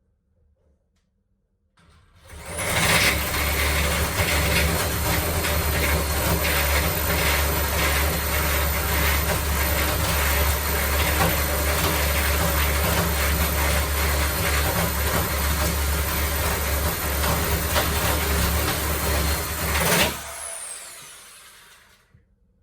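Electric drill boring a hole into a wooden door with a spade bit: it starts about two seconds in, runs steadily with a high motor whine, and winds down with a falling whine near the end.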